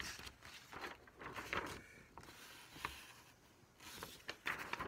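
A sheet of printer paper rustling and crinkling as it is picked up and handled, in several short irregular bursts.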